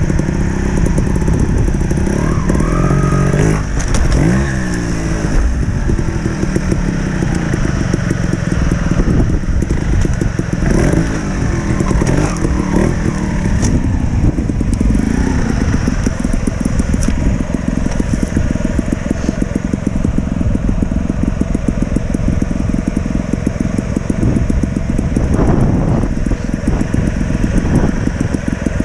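Trials motorcycle engine running at low revs with repeated short throttle blips, its pitch rising and falling several times as the bike is eased over obstacles.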